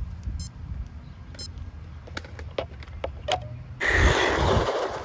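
Two short electronic beeps about a second apart from a handheld GPS speed meter, then, near the end, the brushless MJX Hyper Go V2 1:16 RC truck launching at full throttle: a loud rush of motor whine and tyres tearing across gravel, lasting about a second.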